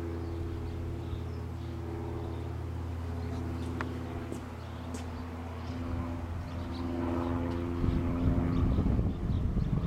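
Steady, even engine drone from some motor other than the car, whose engine is off. From about eight seconds in, the rumble of wind buffeting the microphone is added.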